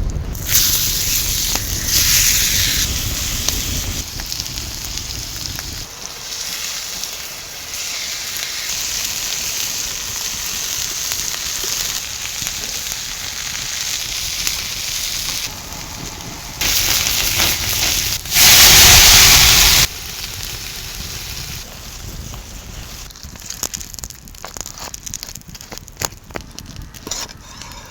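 Steak sizzling over a crackling wood fire, in a string of short edited takes that cut in and out abruptly. The loudest burst of sizzling comes about two-thirds through, and the last few seconds are mostly sharp crackles.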